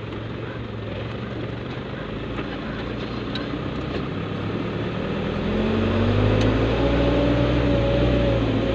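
Truck engine and road noise heard from inside the cab while driving. About five and a half seconds in, the engine hum grows louder and climbs a little in pitch as the truck speeds up, then holds steady.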